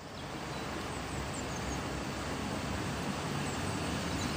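A small 4x4 driving slowly through deep water on a flooded road: low engine rumble under a steady wash of water and falling rain.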